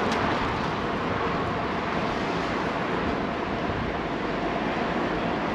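Steady rushing noise of riding a bicycle through city streets: wind over the microphone mixed with passing traffic.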